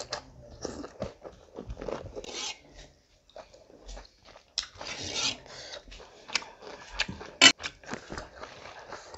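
Close-miked eating sounds: chewing and wet mouth clicks and smacks from a mouthful of rice and curry eaten by hand, with a ladle working in the metal pots and one sharp clink about seven and a half seconds in.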